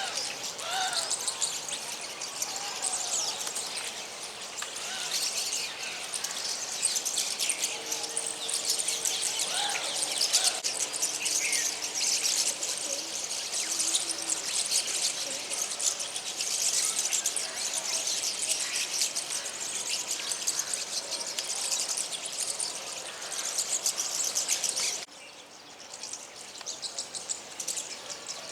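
A flock of small birds chirping and singing together, a dense, many-voiced high twittering; it drops away suddenly near the end, then a few chirps return.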